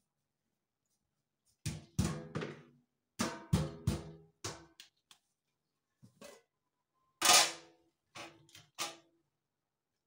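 A metal cooking-pot lid and pot clanking as they are handled: a run of sharp metallic knocks, each with a brief ring. The loudest is a longer scraping clatter about seven seconds in, as the lid comes off the pot.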